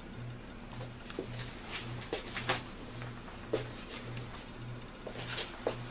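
Handling noise of a person moving close to the microphone and settling in front of it: scattered light clicks and knocks with clothing rustle. Under it runs a low hum that pulses about twice a second.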